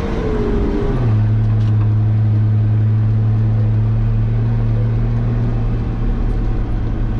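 Nissan Patrol Y60's engine running as the 4x4 is driven off-road: the engine note falls in the first second, then holds a steady low drone.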